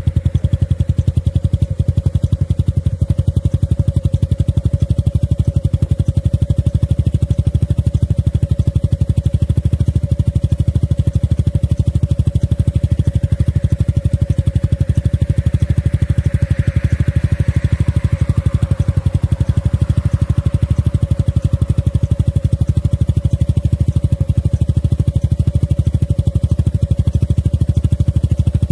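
Motorcycle engine idling steadily, with a fast even beat and no revving.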